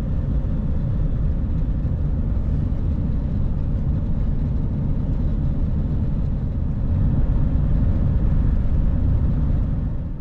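Van engine and road noise heard from inside the cab while climbing a hill: a steady low rumble that swells a little about two-thirds of the way through, then falls away at the very end.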